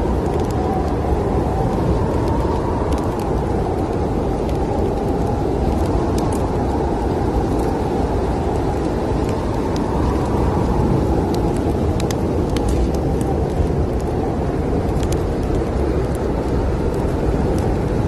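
Steady, deep rush of snowstorm wind, with scattered crackles and pops from a wood fire burning in a fireplace.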